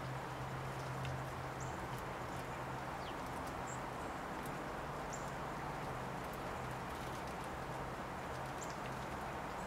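Woodpecker pecking at a wire suet cage, heard as faint scattered taps, with a few short, high bird chirps over a steady background hiss and low hum.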